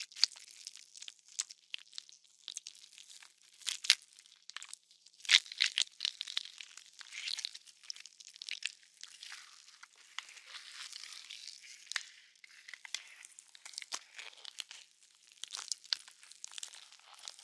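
Designed horror gore sound effect: wet, squishy flesh tearing with irregular sharp cracks and crunches, the loudest snaps about four and five seconds in.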